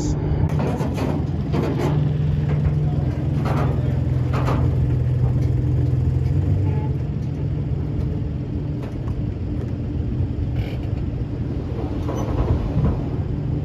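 Engine idling steadily with a low hum that eases off about halfway through, and a few knocks in the first few seconds.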